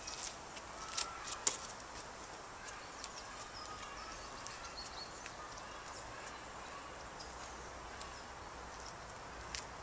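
Footsteps on a gravel path, loudest in the first second and a half and fading as the walker moves away, with small birds chirping faintly over a quiet outdoor hiss.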